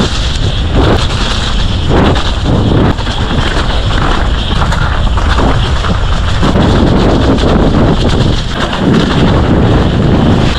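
Loud wind buffeting on the microphone, a continuous low rumble broken by irregular knocks and thumps.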